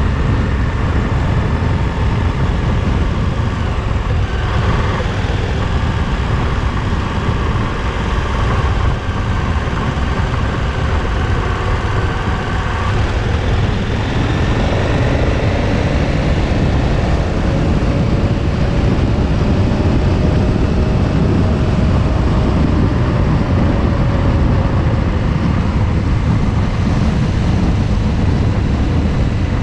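A KTM 1290 Super Adventure's V-twin engine running steadily at road speed under heavy wind rush on the microphone. The engine note rises and falls gently with the throttle.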